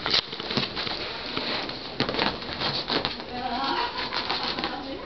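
Scuffling and light knocks at irregular intervals as a Jack Russell terrier puppy scrambles about on a cloth bedspread.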